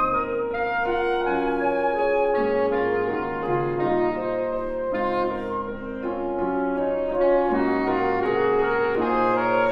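Soprano saxophone and alto saxophone playing sustained, overlapping notes over piano accompaniment in a live chamber performance, the notes changing every second or so without a break.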